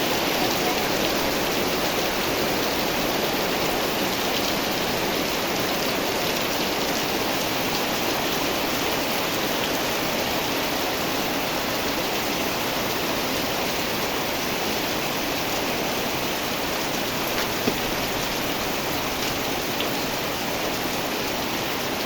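Steady rain falling: a continuous, even hiss of drops that holds level throughout.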